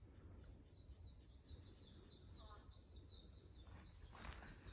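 A songbird calling faintly in a rapid series of short, high, falling chirps, about four a second. Near the end come footsteps and rustling in the undergrowth.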